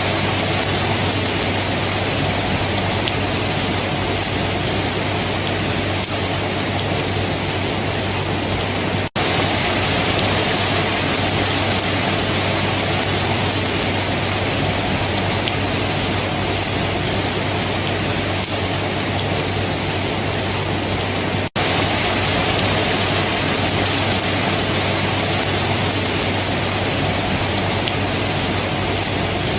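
Steady heavy rain falling, an even dense hiss, with a steady low rumble beneath. The sound cuts out for an instant twice, about nine seconds in and about twenty-one seconds in.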